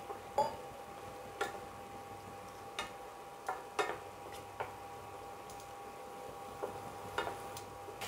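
A spoon knocking and scraping against a cooking pan as sauce is stirred, about eight irregular clinks, over a faint steady hum.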